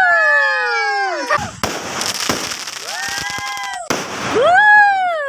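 Fireworks cake firing whistling shells in quick succession: three loud whistles about a second and a half apart, each arching then falling in pitch, with sharp cracks and pops of the bursts between them.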